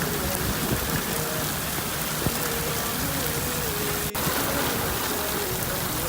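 Steady, dense hiss of heavy rain falling, with a faint sung melody held over it.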